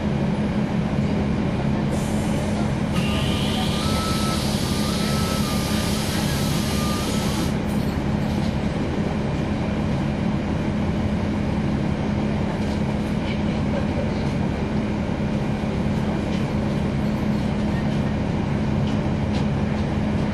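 Cummins ISL9 diesel engine of a 2012 NABI 40-SFW transit bus running at a steady speed. About two seconds in, a hiss of air starts and lasts about five seconds, then cuts off. A faint alternating two-note beeping sounds under the hiss.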